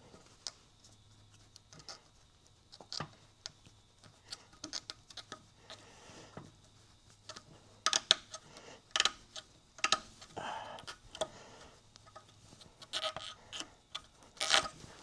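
Scattered light clicks and knocks of metal parts and tools being handled, sparse at first and coming thicker and louder from about halfway through, over a faint steady hum that stops about six seconds in.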